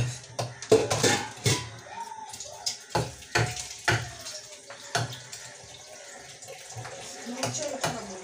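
Kitchen knife hacking into a very hard pumpkin on a counter: a string of sharp chops, bunched about a second in and again around three to four seconds in.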